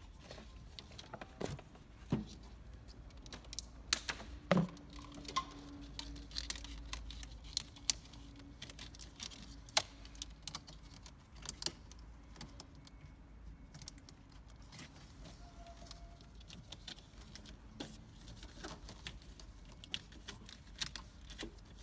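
Irregular small clicks, taps and rattles of hands handling a wiring loom and plastic connectors in a car's engine bay, with a few sharper knocks about four and ten seconds in.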